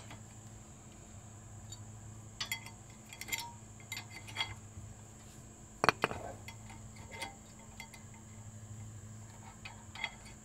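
Metal hand tools clinking as they are handled and set down, a string of separate sharp clinks with the loudest about six seconds in, over a steady low hum.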